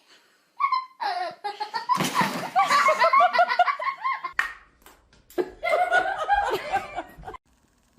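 Hearty human laughter in quick repeated bursts, with a short break about halfway through.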